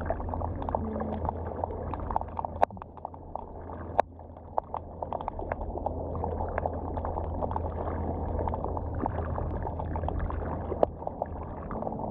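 Underwater sound picked up by a camera inside a crab trap: a steady low hum with a dense crackle of short clicks over it, the unexplained sounds that the recordist's best guess puts down to black drum. A few louder clicks stand out, about two and a half, four and eleven seconds in, and the hum fades out about ten and a half seconds in.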